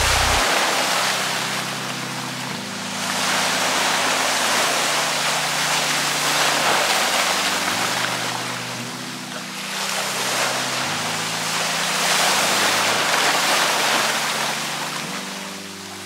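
Small waves of slushy, half-frozen seawater washing in among snow-covered ice chunks at the shoreline, the wash swelling and fading about every five to six seconds. Soft background music with sustained notes plays underneath.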